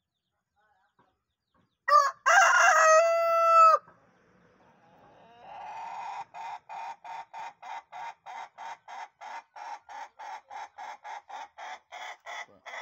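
A rooster crows once: a short first note, then a long held note of about a second and a half that drops in pitch as it cuts off. After a pause, a fast, even run of short calls, about four a second, starts and keeps going.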